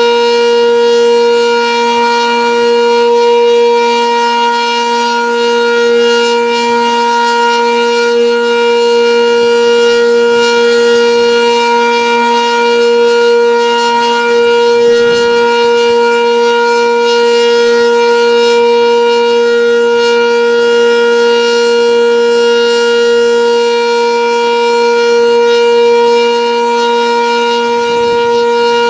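Sentry 10V outdoor warning siren sounding the steady Alert signal: one loud, unbroken tone held at a constant pitch. Wind buffets the microphone now and then underneath it.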